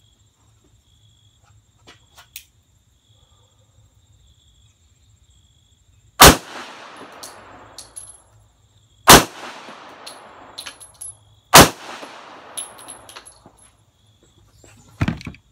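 Three shots from a Colt Competition 1911 pistol in .45 ACP, fired about two and a half to three seconds apart, each trailing off in echo. A few faint clicks of gun handling come before them, and a smaller clack follows near the end.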